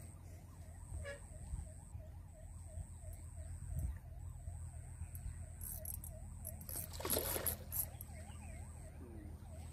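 A hooked catfish thrashing and splashing at the water's surface near the bank, loudest about seven seconds in. Throughout, a steady warbling siren-like tone rises and falls about four times a second.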